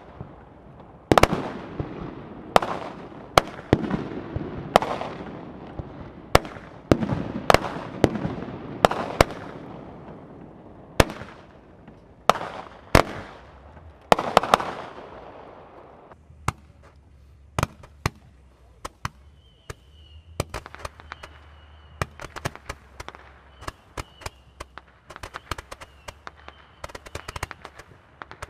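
Consumer aerial fireworks going off: a run of loud bangs about once a second, each trailing off in an echoing rumble. About halfway through they give way to a quicker patter of lighter pops and crackles, with a faint steady high tone running beneath them for several seconds.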